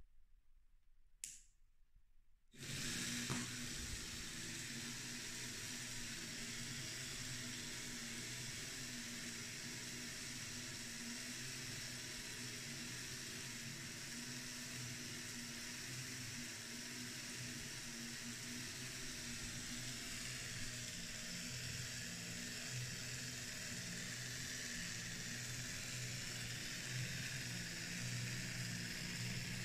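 Electric drive motor of a replica of William Skinner's 1939 gravity-power machine, switched on about two and a half seconds in and then running steadily with a low hum and a hiss as the weighted mechanism turns.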